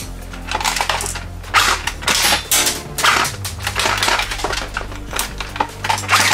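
Hard plastic toy guns clattering and knocking together in a cardboard box as a toy AK-47 is handled and lifted out, an uneven run of sharp clicks and rattles.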